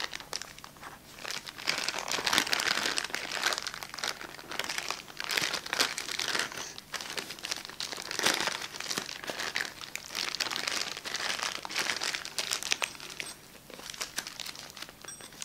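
Plastic packaging bag crinkling and crumpling in the hands in irregular bursts as it is worked open to free an item packed snugly inside.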